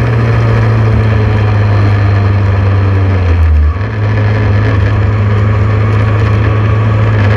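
Open-wheel formula race car's engine running hard at speed, heard from on board. A steady, loud engine note with a brief dip in level a little over halfway through.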